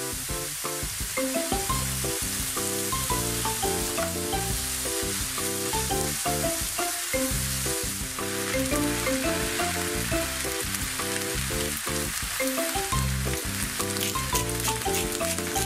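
Shirataki noodles sizzling in sesame oil in a hot frying pan and being stirred, with a steady hiss throughout and sharp ticks near the end. Light background music with a stepping melody plays over it.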